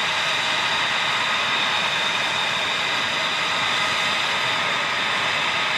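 F-22 Raptor's twin Pratt & Whitney F119 turbofans running steadily at ground idle: a constant jet rush with a high, even turbine whine.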